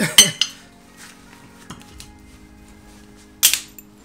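Metal clunks and clatter of a heavy air-conditioning compressor coming off the engine and being handled: a sharp ringing metallic clatter at the start and another clunk about three seconds in.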